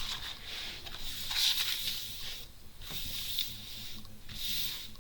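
Rustling of a diamond painting canvas and its plastic release paper being handled, rising and falling in several soft swells.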